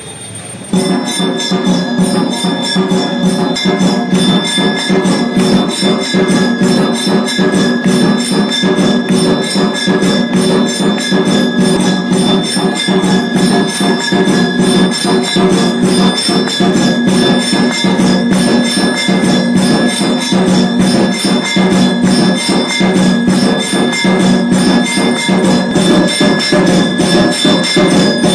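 Temple bells and metal percussion clanging in a fast, unbroken rhythm for an aarti, with steady ringing tones over the strikes; it starts about a second in after a short lull.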